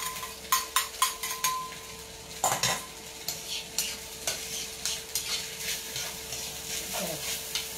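A metal spatula scraping and clicking against a 32 cm stainless steel wok as soaked glutinous rice is stir-fried with soy sauce, with a light sizzle. The clicks come irregularly throughout, over a faint steady hum.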